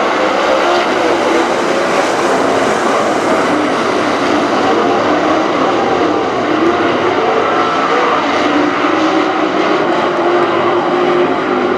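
A pack of dirt late model race cars at racing speed, their V8 engines running together as one continuous din, with several engine notes rising and falling as drivers lift and get back on the throttle.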